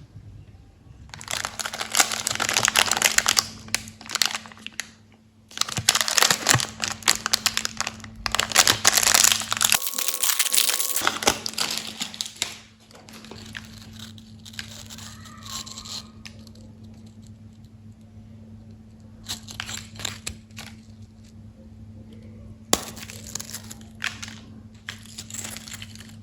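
Candy and chocolate wrappers being torn open and crinkled in several bouts, loudest in the first half, with a faint steady hum underneath.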